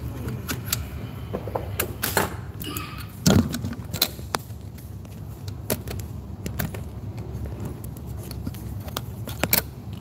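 Handling noise from a camera being moved and set in place: scattered clicks, knocks and rubbing on the microphone, with a low thump about three seconds in, over a steady low room hum.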